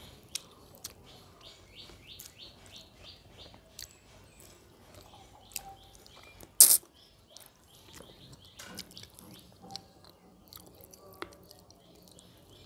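A small bird chirping over and over at about three chirps a second, stopping about seven seconds in, over eating by hand: soft clicks and smacks of chewing and of fingers mixing rice on a steel plate. About six and a half seconds in, one loud sharp click stands out above everything else.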